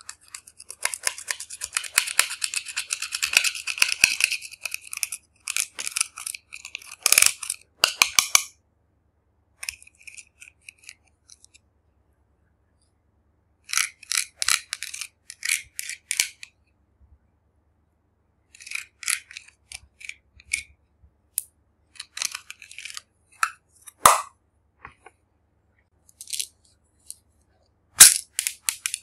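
Small spatula scraping and crumbling pressed powder blush and glitter eyeshadow in a plastic compact: bursts of rapid, scratchy strokes with pauses between them. A few sharp clicks, the loudest near the end.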